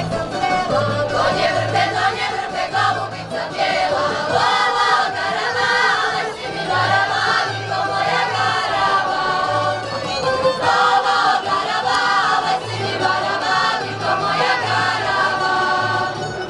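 Women's folk choir singing a Slavonian folk song in unison, accompanied by a tamburica band whose bass plucks a steady beat underneath.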